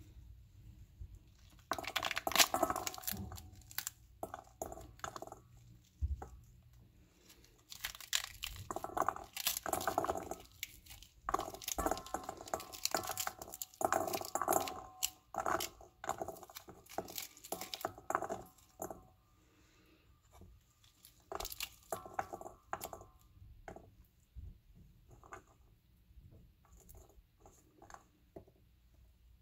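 Pomegranate rind and pith being torn apart by hand, with crackling, crunching tears and sharp clicks as seeds drop into a stainless steel bowl. Busy through most of the first two-thirds, then thinning to scattered clicks.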